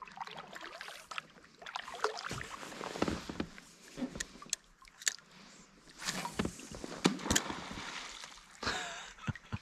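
Water sloshing and dripping around a kayak, with scattered small splashes and knocks of the paddle and hull at irregular intervals.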